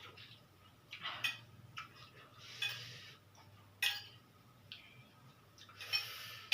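Close-up eating sounds of someone eating noodles: short clicks, smacks and slurps, spaced a second or so apart.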